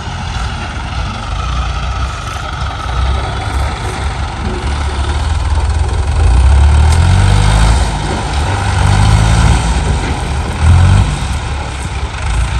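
Motor vehicle engine running, a deep rumble that swells and fades in loudness.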